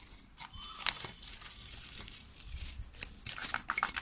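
Rustling and crinkling of a milk-powder carton's packaging being handled and tipped to pour, with scattered sharp clicks and taps.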